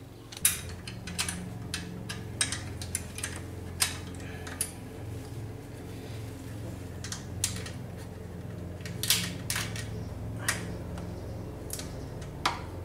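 Hand tools clicking and clinking on metal at the timing belt tensioner of a Volvo D5252T five-cylinder diesel as the tensioner bolt is worked on, a dozen or so irregular sharp clicks over a steady low hum.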